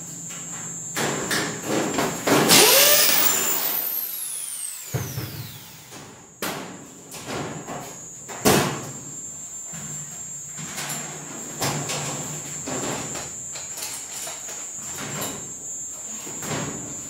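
A corded electric drill runs about two seconds in, then its whine falls in pitch over a couple of seconds as the motor winds down. Before and after come knocks and clatter from hands working a kitchen wall cabinet and its doors, with one sharp knock near the middle.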